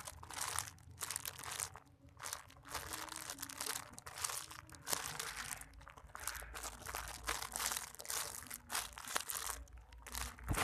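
Irregular crinkling and rustling in short bursts, the sound of crinkly material such as a plastic wrapper being handled.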